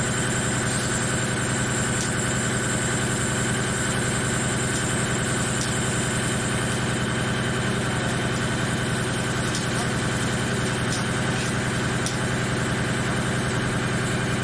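Thread-whirling head on a CNC lathe running steadily as it mills the thread of a motor worm shaft: a constant machine hum with several high steady tones and a few faint ticks.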